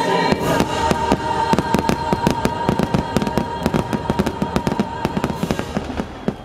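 Rapid barrage of aerial fireworks bursts, about seven or eight sharp reports a second, over show music holding one long chord that stops shortly before the bursts thin out.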